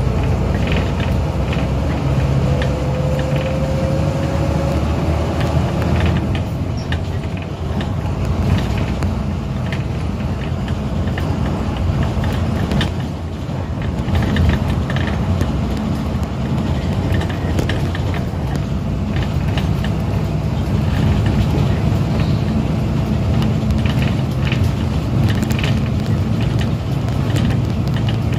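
Steady engine and road noise of a moving vehicle, heard from inside as it drives along, with a faint whine rising slowly in pitch over the first few seconds.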